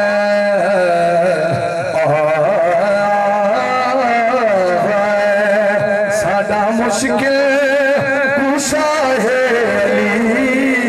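A man singing a devotional recitation into a microphone over a loudspeaker, holding long, ornamented notes that glide between pitches, with vibrato on the held notes.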